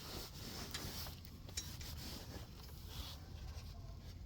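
A cloth rag rubbing and wiping in irregular strokes, cleaning up spilled oil, with a few light clicks.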